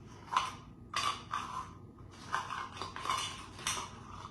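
Vanilla wafer cookies and dishes being handled: a string of about six short, light clatters and rustles.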